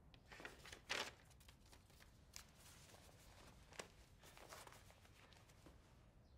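Near silence: quiet room tone with a few faint, short rustles, the loudest about a second in.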